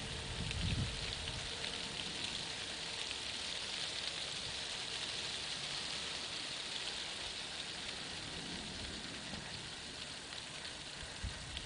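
Steady, fine crackling hiss of insects chirring in meadow grass, swelling a little midway. A low wind rumble on the microphone comes in the first second.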